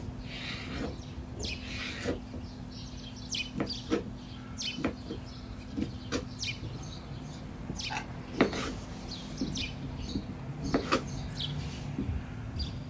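Kitchen knife cutting food on a plastic cutting board: irregular soft taps and clicks, over a steady low hum.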